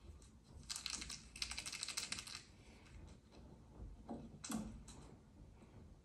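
A quick run of light clicks or taps, like keys being typed, lasting about a second and a half, followed a couple of seconds later by two soft knocks.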